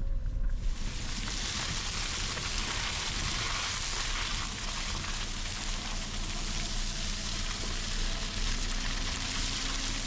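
Steady hiss of water, beginning abruptly about half a second in, over the low rumble of a small car driving on a rain-soaked road.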